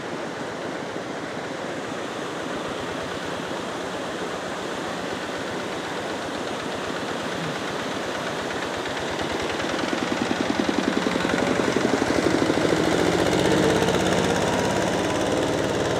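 A small engine running with a fast, even beat over a steady hiss, growing louder about ten seconds in.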